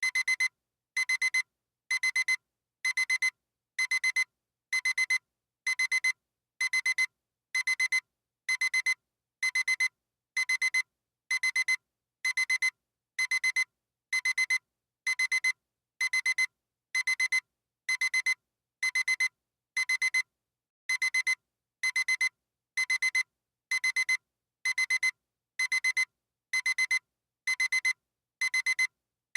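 Digital alarm clock alarm beeping: a high-pitched electronic beep in quick clusters, repeating about once a second without change.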